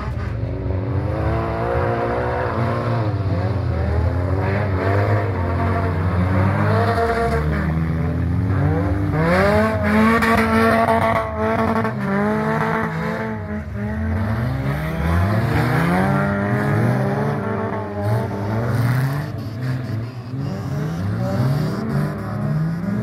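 Several old cars' engines racing on a muddy dirt track, revving up and down with overlapping rising and falling pitches as they accelerate through the corners.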